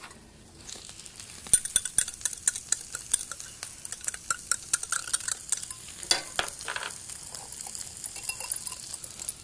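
Wire whisk clicking and scraping quickly against a glass bowl, beating tomato purée, tomato paste and chicken stock together. It starts about a second and a half in.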